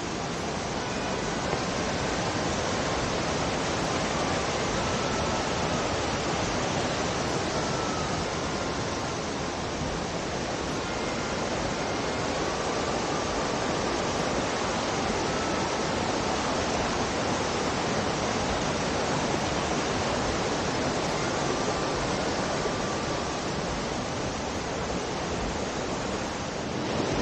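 Steady rushing of a mountain torrent: an even, unbroken noise of fast-flowing water.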